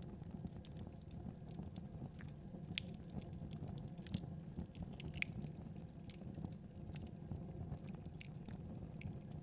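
Wood fire burning with a steady low rumble and frequent sharp crackles and pops, a few louder snaps among them.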